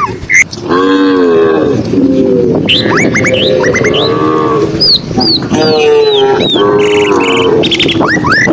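Several cows mooing, a string of drawn-out, overlapping moos one after another, with birds chirping over them.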